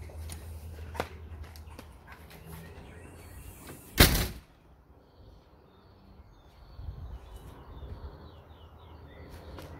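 Small birds chirping faintly over a low outdoor rumble, with a single loud sudden thump about four seconds in and a small click about a second in.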